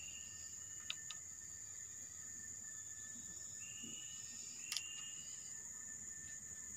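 Steady high-pitched drone of insects, with two short whistled notes and a few faint clicks about a second in and near the five-second mark.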